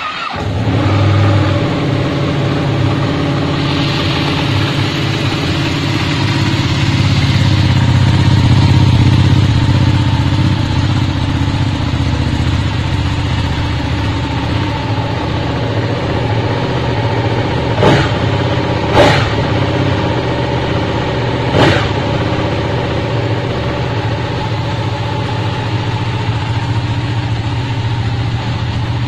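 Ducati 959 Panigale's Superquadro twin-cylinder engine idling steadily in neutral. Three brief sharp knocks sound about two-thirds of the way through.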